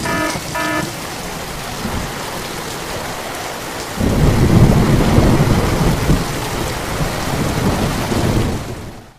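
Steady heavy rain, with a rumble of thunder breaking in about four seconds in and slowly dying away. The sound cuts off just before the end.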